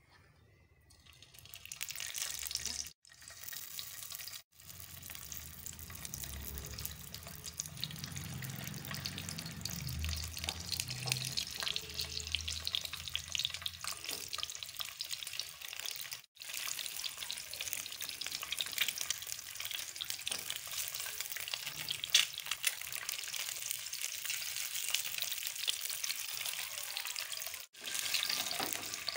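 Hot oil sizzling in a non-stick frying pan, with peeled boiled eggs, slit open, frying in it. The steady sizzle breaks off for a moment a few times.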